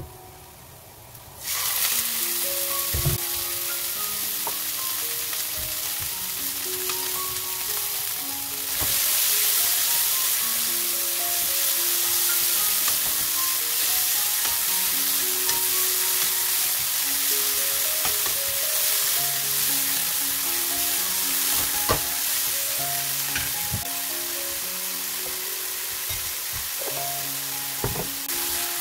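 Shredded pork frying with garlic and ginger slices in hot oil in a nonstick wok, a steady loud sizzle with stirring. The sizzle starts abruptly about a second and a half in and grows louder at about nine seconds. A few sharp knocks of the utensil against the pan.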